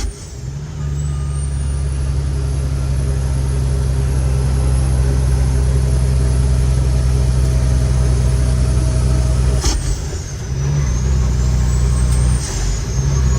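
Cummins X15 diesel engine of a loaded Kenworth T800 truck pulling hard at full throttle, heard from the cab, with a high turbo whistle. The engine note drops out briefly as gears are changed, once at the very start, again about ten seconds in and about twelve seconds in, with the whistle falling and climbing back each time.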